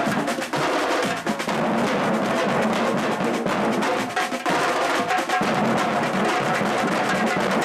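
Batuque percussion ensemble drumming, many hand drums playing a dense, steady rhythm together.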